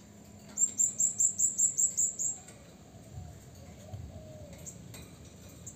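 Blue-crowned hanging parrot (serindit) calling: a rapid run of about ten sharp, high chirps, roughly six a second, over just under two seconds.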